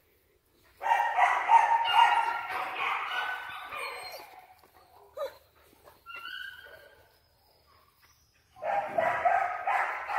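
Young dogs yipping and whining in high, wavering voices: a long bout starting about a second in and fading after a few seconds, a few short whines around the middle, and another bout near the end.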